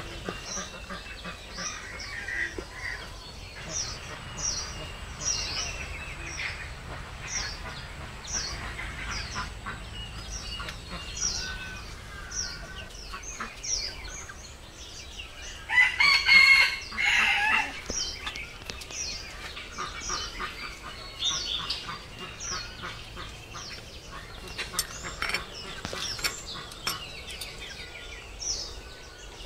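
A rooster crows once, loudly, about halfway through. Behind it a small bird gives short, high chirps about once a second.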